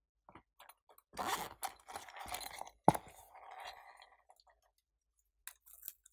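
Silicone pop-it pouch being handled and squeezed: crackly, crunchy rustling from about a second in, with one sharp click near the middle, the loudest sound, then a few small ticks.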